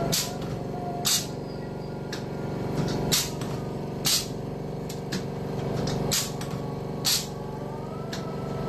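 Motor-driven wire straightening and cutting machine running with a steady hum, broken by short, sharp hissing bursts that come in pairs about a second apart, a pair roughly every three seconds, as the cutter cycles.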